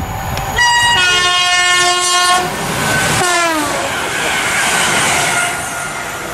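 Express passenger train sounding its horn as it runs through a station at speed: a loud two-note horn chord held for almost two seconds, then a shorter blast whose pitch drops away as the train sweeps past. The rush of the carriages passing follows and fades after about five seconds.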